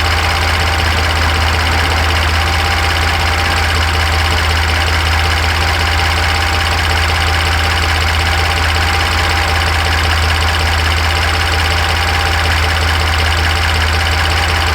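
Ford F-150's twin-turbo EcoBoost V6 idling steadily after a warm start, with no misfire heard.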